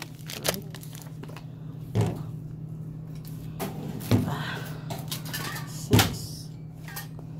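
Shopping items being set down on a checkout counter: four short knocks and clunks about two seconds apart, the last one the loudest, over a steady electrical hum, with faint voices in the background.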